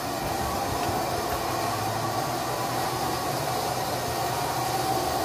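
Mechanical milking machine running: a steady drone and hiss from its vacuum system, unchanging throughout.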